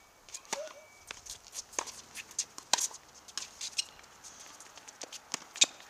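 Tennis ball being struck by racquets and bouncing on a hard court: a sharp pop about half a second in as the near player serves, then an irregular run of hits and bounces with quick footsteps.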